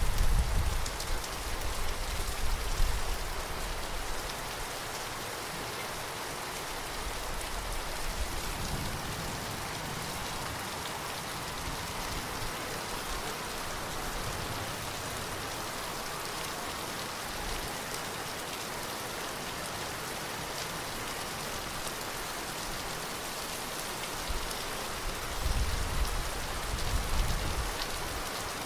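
Steady rain falling, an even hiss of many drops. Low rumbling comes through in the first few seconds and again near the end.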